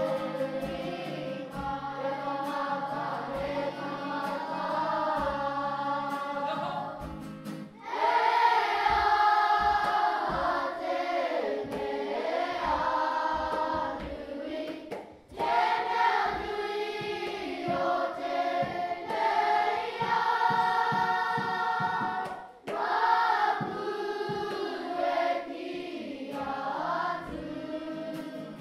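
A group of voices singing a song together, choir-style, over instrumental backing; the singing grows louder and fuller about eight seconds in.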